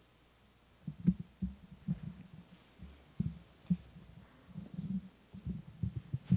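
A congregation standing up from wooden chairs: irregular low thumps and knocks of chairs and feet on the floor, starting about a second in.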